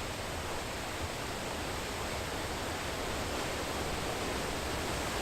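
Steady rushing of a large waterfall, a dense even wash of water noise that grows slightly louder.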